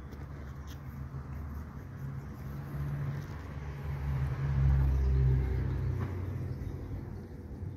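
A motor vehicle passing by: a rumble that swells to its loudest about five seconds in, then fades away.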